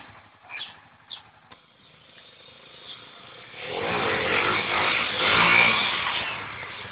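Honda XR 250 Tornado dirt bike's single-cylinder four-stroke engine passing by: the engine noise swells from about halfway through, peaks, then fades away as the bike goes past.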